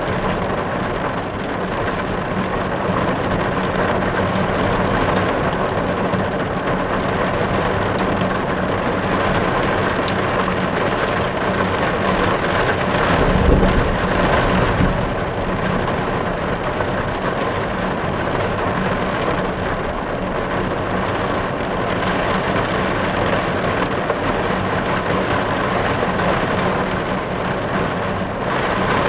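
Rain falling on a car's roof and glass, heard from inside the car: a dense, steady patter. There is a brief low rumble about halfway through.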